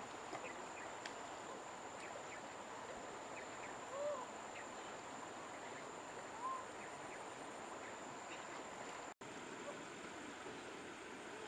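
Shallow river running over stones as a faint, steady rush, with an insect's thin, steady high trill on top. Two short rising-and-falling calls stand out, about four and six and a half seconds in.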